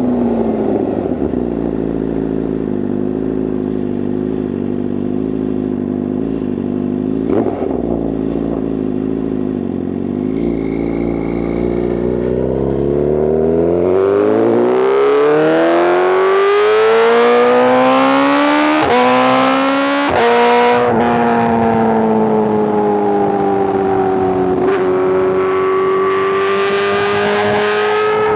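2024 BMW S1000RR inline-four with a titanium exhaust, running steadily at low revs for the first half. It then accelerates hard with a rising pitch, and two quick upshifts drop the pitch in short steps before it settles into a steady, higher-revving run.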